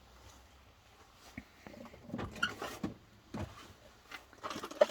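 Scattered light clicks and taps of small tools and parts being handled on a workbench, with a sharper knock near the end.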